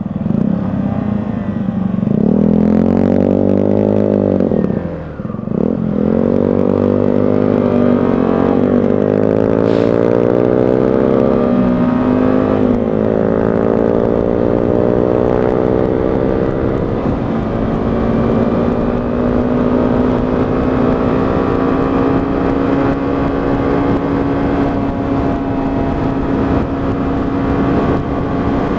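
125cc motorcycle engine pulling away and accelerating up through the gears. Its pitch climbs and then drops at each of several gear changes over the first dozen or so seconds, then holds nearly steady as the bike cruises.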